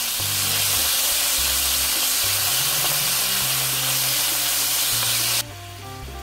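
Beef cubes sizzling loudly in sesame oil in a hot pan, stirred with a wooden spoon. The sizzle drops suddenly to a much quieter level about five seconds in.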